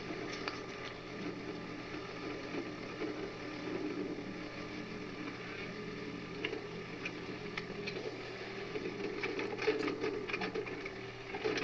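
Excavator diesel engine running steadily, with irregular metallic clinks and clanks from work on the machine's stationary thumb. The clanks grow busier after about eight seconds.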